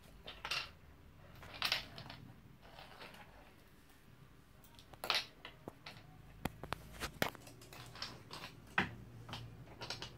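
A ferret batting a plastic bottle cap across a wooden parquet floor: scattered irregular clicks and knocks of the cap and the ferret's claws on the wood, with a few louder scrapes.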